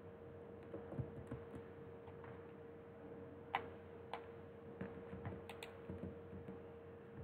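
Scattered clicks of a computer keyboard and mouse being worked, a handful of separate presses with the sharpest about three and a half seconds in, over a faint steady hum.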